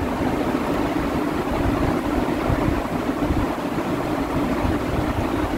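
Steady machine hum and rumble with no clear strokes or clicks, from a running motor.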